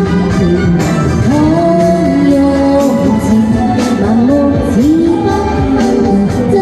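Chinese pop song playing: a sliding, scooping melody line over steady backing accompaniment.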